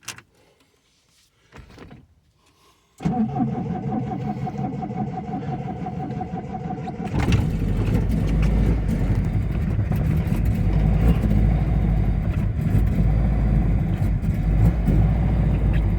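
Triumph TR7's four-cylinder engine being started from cold: about three seconds in the starter cranks it with a steady whine for about four seconds, then it catches and settles into a steady idle.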